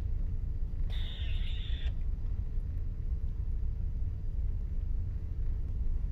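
Steady low rumble of ship's machinery with a constant hum. A short hiss sounds about a second in.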